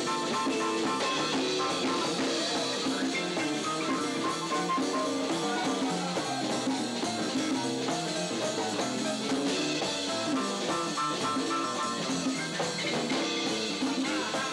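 Live jazz band playing, with drums and guitar among the instruments.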